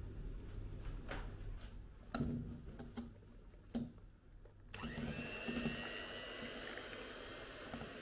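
A few sharp knocks and clicks of kitchenware being handled, then about halfway through an electric hand mixer (Tefal Mastermix) switches on suddenly and runs steadily with a slightly rising whine, its beaters whisking eggs and sugar in a stainless steel bowl.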